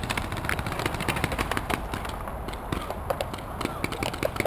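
Paintball markers firing on the field, a run of sharp, irregular pops, over a low wind rumble on the microphone.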